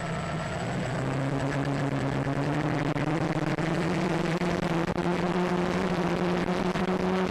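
X350Pro quadcopter's brushless motors and propellers spinning up: a buzzing whine that climbs gradually in pitch from about a second in, then holds steady.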